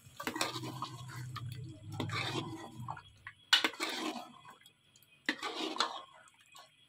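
Steel ladle stirring thick potato-and-yogurt masala in an aluminium pressure-cooker pot, in irregular wet, scraping strokes, as the yogurt is fried into the masala.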